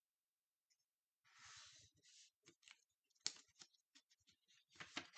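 Printed paper sheets being handled and slid across a desk: dry rustling in bursts starting about a second in, with one sharp tap a little past the middle.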